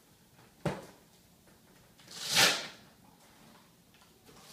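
Handling of a new motocross boot and its packing: a sharp click about a second in, then a rustling swish that swells and fades.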